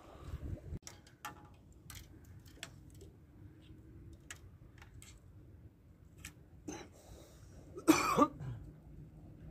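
A person coughs once, loudly and briefly, about eight seconds in, over a low steady rumble and a few faint clicks.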